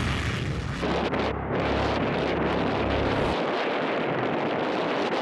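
F-15 fighter jet taking off on afterburner: a steady rushing jet noise with a deep rumble underneath that falls away about three seconds in as the jet climbs off.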